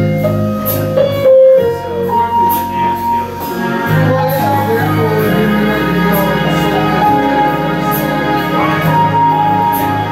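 Karaoke backing track playing an instrumental break: held chords and a melody line, with no singing.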